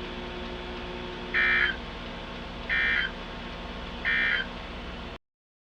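NOAA Weather Radio EAS end-of-message code: three short digital data bursts (squawks) about 1.4 seconds apart over steady radio hiss, marking the end of the Required Weekly Test. The audio cuts off abruptly near the end.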